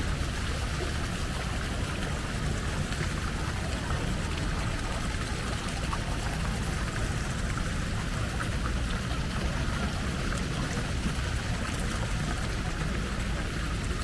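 Steady outdoor city ambience: a low rumble under a constant hiss, with a few faint ticks and no single sound standing out.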